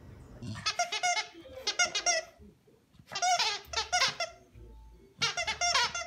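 Orange plush squeaky toy squeaking as a dog bites and chews it, in five clusters of rapid squeaks with short pauses between.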